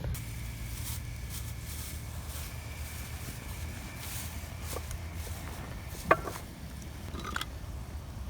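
Steady low rumble with faint scattered crackles, broken about six seconds in by one sharp knock that rings briefly, and a lighter knock a little later.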